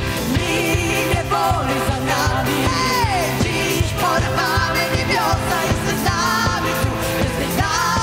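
Live worship band: several women singing a Polish worship song together over keyboard and electric guitar, with a steady beat.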